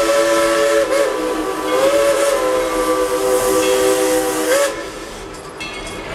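Steam locomotive's chime whistle blowing two long blasts, several tones sounding together over a hiss of steam. The first blast ends about a second in, and the second starts a moment later with a slight upward slide and stops about three seconds later.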